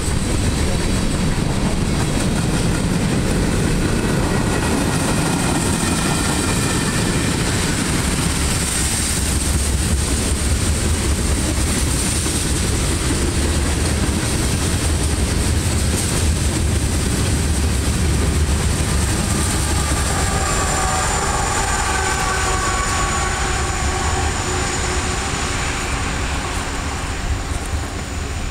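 Freight train cars rolling past close by: a steady rumble and clatter of steel wheels on the rails. Faint high steady tones join in during the last third.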